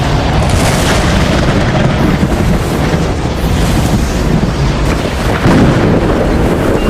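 Tornado sound effect: a loud, steady rush of wind over a deep rumble, swelling slightly about five and a half seconds in.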